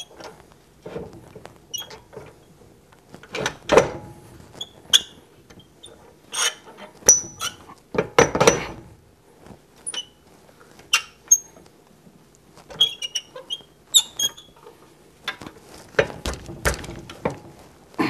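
Irregular metallic clicks, clinks and knocks as the tailstock of a small wood lathe is handled and adjusted by hand. Some clicks ring briefly, and the loudest knocks come a little before four seconds in and again around seven and eight seconds.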